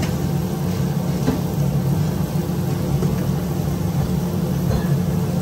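Steady low mechanical hum, the loudest sound, over faint sizzling of sliced onions frying in oil in an aluminium pot, with a light click or two of a metal spoon near the start.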